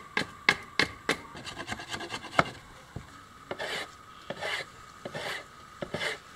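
Wooden axe handle being shaped by hand: a quick run of sharp clicks from a blade biting into the wood, then slower scraping, rasping strokes along the handle, a little under one a second.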